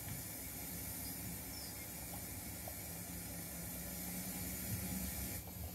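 0 gauge model train running slowly along the track: a low rumble of wheels and motor that swells a little about four seconds in, over a steady high hiss that cuts off suddenly near the end.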